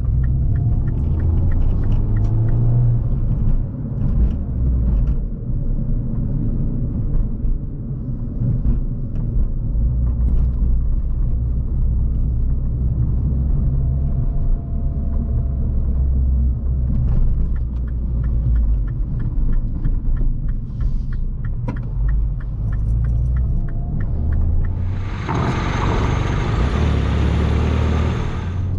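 Tuned Mini Cooper S turbocharged four-cylinder with a Remus exhaust, heard from inside the cabin as a low drone while driving, rising and falling with the throttle. Near the end a loud rushing hiss takes over for about three seconds.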